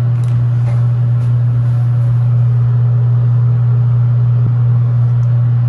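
A loud, steady low hum, with a few faint clicks over it.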